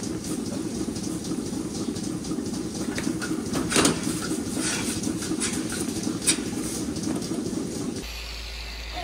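Milking parlour machinery running steadily, with metal clanks and clatter from the milking clusters being handled, the loudest about four seconds in and again a little after six. Near the end it gives way to a quieter low hum.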